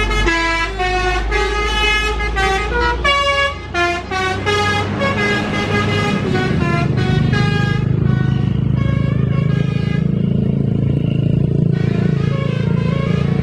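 A tour bus's telolet horn playing a quick tune of stepped notes for about eight seconds. After that a bus engine drones, with fainter horn notes over it.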